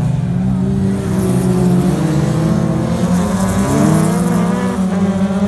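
Engines of several old saloon race cars running hard at high revs as they race in a group. Their pitches shift against each other, and one climbs as a car accelerates about three and a half seconds in.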